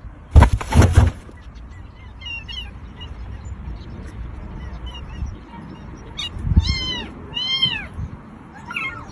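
A cat meowing: a faint meow about two seconds in, then two clear meows in quick succession near the end. A loud, brief noise about half a second in is the loudest sound.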